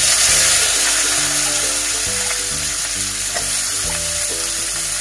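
Sliced raw onions frying in hot mustard oil in a karahi: a loud, steady sizzle that starts suddenly as they go in, stirred with a spatula. Background music plays underneath.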